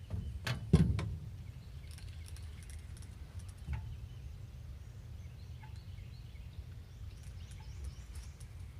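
A couple of sharp knocks about a second in, like gear being handled on a fishing boat, then a steady low rumble with a few faint ticks.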